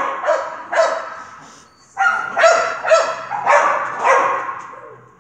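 Dog barking repeatedly: two barks, a pause of about a second, then a quicker run of about five barks.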